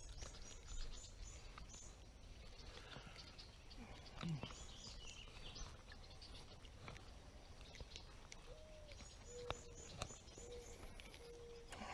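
Faint outdoor ambience with distant birds calling: thin high chirps now and then, and a lower held note that breaks off and resumes a few times near the end.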